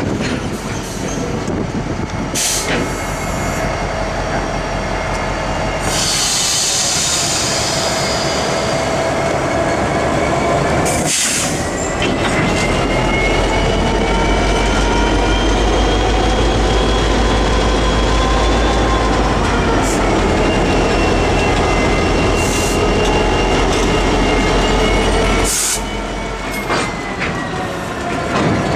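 Norfolk Southern SD40E diesel locomotive rolling slowly past close by, its engine running with a low rumble. Its wheels squeal in steady high tones that drift slowly in pitch, with a few sharp knocks from the wheels on the rail.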